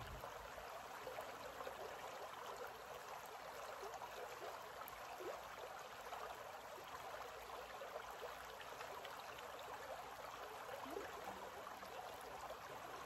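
A shallow forest creek running over rocks: a faint, steady babble of flowing water.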